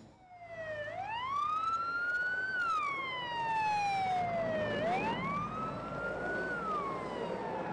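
Emergency vehicle siren in a slow wail, its pitch rising and falling twice, over a steady rushing noise.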